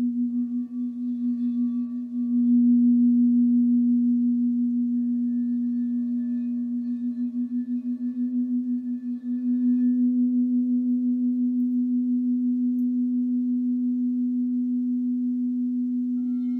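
Frosted quartz crystal singing bowls, played with mallets, sounding one deep sustained tone that wavers in a slow pulsing beat, with fainter higher overtones coming and going. The tone swells up again about two seconds in and again about nine seconds in.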